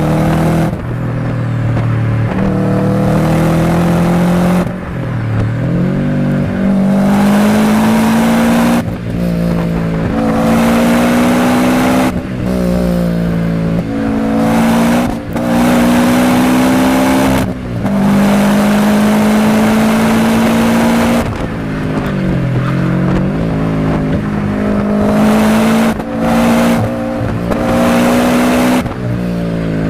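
Nissan 350Z's 3.5-litre V6 exhaust under hard acceleration. The engine note climbs through the revs and drops at each gear change, again and again across several short clips cut together.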